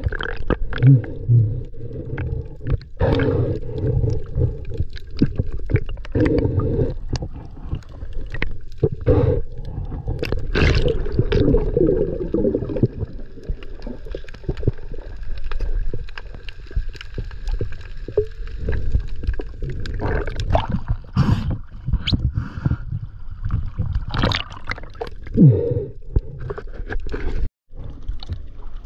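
Muffled underwater water noise picked up by a submerged action camera: gurgling and rumbling water movement around the housing, with scattered short knocks. The sound cuts out for a moment near the end as the camera nears the surface.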